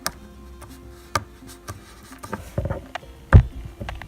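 Homemade slime being stretched and squished by hand, making scattered small clicks and pops, with a louder thump a little over three seconds in.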